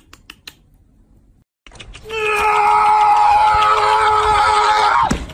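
Faint light ticks at first. Then a loud, long, high-pitched wail held on one pitch for about three seconds, which drops sharply in pitch as it cuts off.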